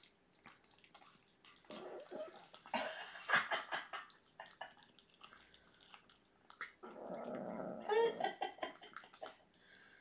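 Two kittens eating wet food from a shared bowl: wet chewing and smacking clicks, and about seven seconds in a low, rough growl lasting over a second from one kitten growling over the food.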